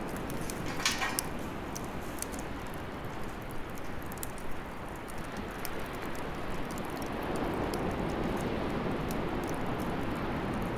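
Bonfire burning: a steady low rush of flame with frequent sharp crackles and pops, and one louder crackle about a second in.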